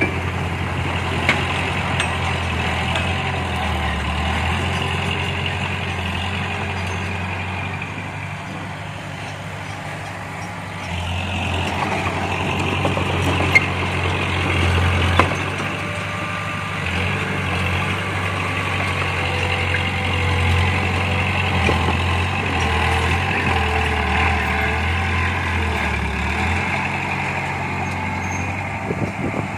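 Heavy diesel earthmoving machinery running steadily. The engine eases off for a few seconds and picks up again about eleven seconds in, with a few sharp knocks.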